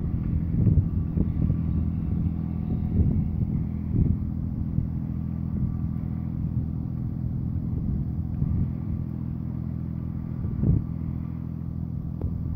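Super Manta Ray 3900-series boat's engine running steadily under way: a low, even drone, with a few brief low thumps.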